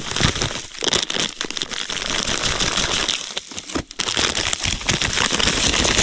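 Plastic groundbait packets crinkling and rustling in the hands as dry feeder groundbait is shaken out of them into a bucket, with a short lull about midway.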